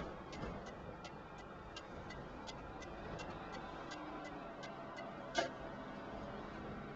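Steady ticking, about three clicks a second, that fades out after about five seconds, then one louder sharp click, over a steady background hiss.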